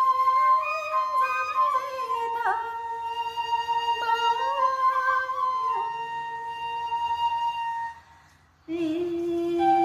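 A woman sings a Tày-Nùng sli folk song: a long, wavering, ornamented phrase over a steady high held tone. The phrase breaks off about eight seconds in, and a new, lower phrase begins abruptly almost a second later.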